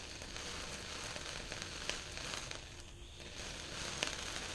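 Small indoor firework fountain burning, a steady hiss of spraying sparks with a few sharp crackles.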